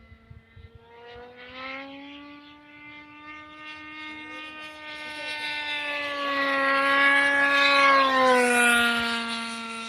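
Fuel-burning engine and propeller of a wooden F3R pylon-racer model plane in flight, a high buzzing note that grows louder as the plane comes close, then drops in pitch and fades as it passes, about eight and a half seconds in.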